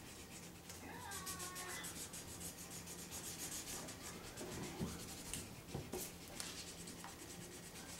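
Felt-tip markers scrubbing on paper as two people colour in, a faint, rapid, rhythmic scratching of back-and-forth strokes, with a few sharper taps of a marker tip toward the end.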